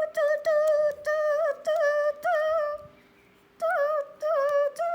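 A child's high voice humming a wavering tune in short notes, breaking off for about a second midway, with small clicks between the notes.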